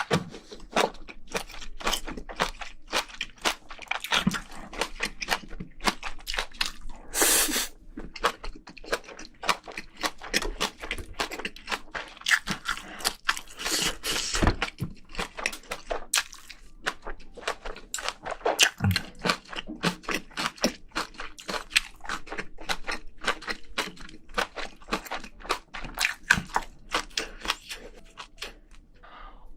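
Close-miked chewing of spicy braised seafood and vegetables, with many sharp crunches and clicks, as in mukbang eating sounds.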